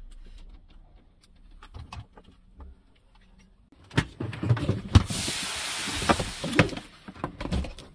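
Small clicks and knocks of parts being handled during a fitting job. About four seconds in, a louder spell of rustling begins, with several sharp knocks, as fabric rubs against the microphone.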